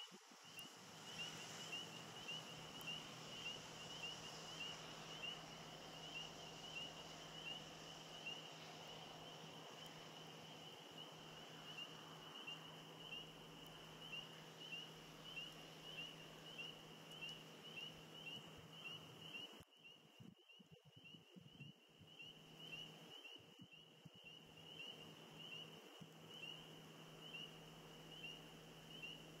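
Frogs calling: faint high peeps repeating about once a second, over a low steady hum.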